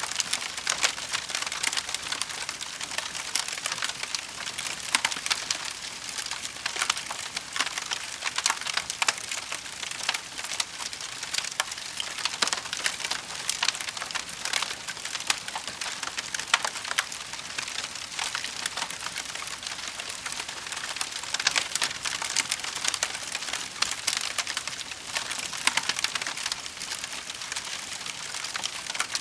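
Wood fire in a fireplace crackling steadily, a dense run of small pops and snaps.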